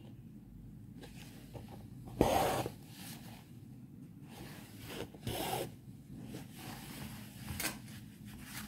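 Doubled embroidery thread pulled through fabric stretched in a hoop: three short rasping pulls, the loudest about two seconds in.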